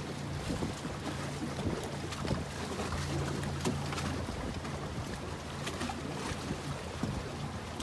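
A steady low motor hum under wind noise on the microphone, with scattered small clicks.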